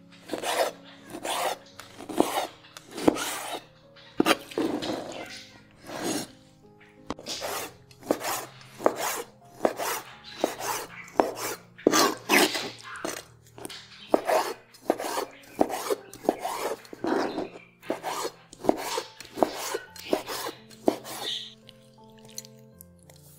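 Santoku knife chopping red pepper on a hard speckled cutting board: repeated sharp knocks of the blade on the board, about two a second, stopping about 21 seconds in.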